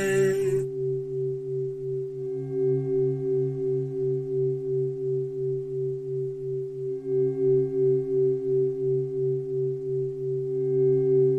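Meditation drone of a few low, steady tones that pulse in loudness about twice a second, with fainter higher tones fading in and out.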